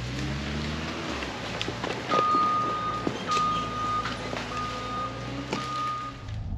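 A heavy machine's backup alarm beeping four times, each beep under a second long, over a running engine, with a few sharp knocks.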